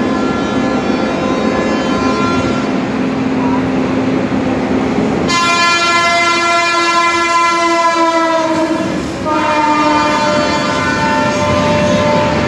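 Indian Railways electric locomotive horn sounding two long blasts over the steady running noise and clatter of a train. The first blast starts about five seconds in and slides slightly down in pitch. The second follows a short break after it.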